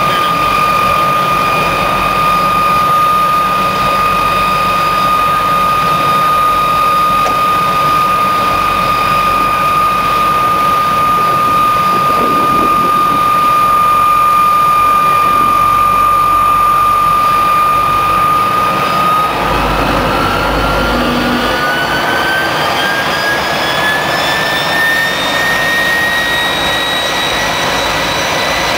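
MiG-15UTI jet trainer's centrifugal-flow turbojet running on the ground with a loud, steady whine over a rushing exhaust noise; about two-thirds of the way through the engine spools up and the whine rises in pitch.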